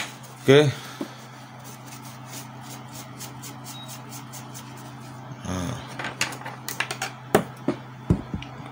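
Inkjet cartridges being handled and their contact pads wiped with a cloth: soft rubbing and small ticks, with a few louder clicks and knocks in the second half, over a steady low hum.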